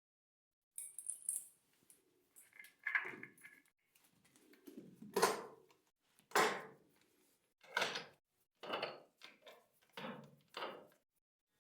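A series of about nine separate clunks and rattles, each under a second, starting about a second in: handling noise of objects being moved or opened.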